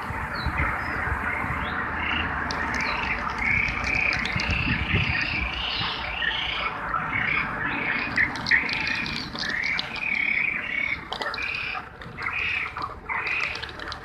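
A chorus of frogs at a reedy pond, many short croaking calls overlapping and repeating: the mating calls of breeding frogs.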